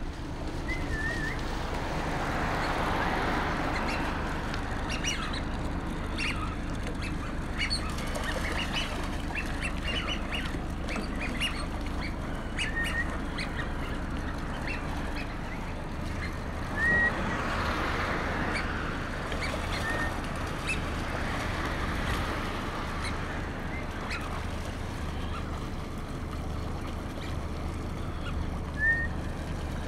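Eurasian wigeons calling. Short whistles come about five times, each with a slight rise, along with scattered brief calls, over a steady low engine hum.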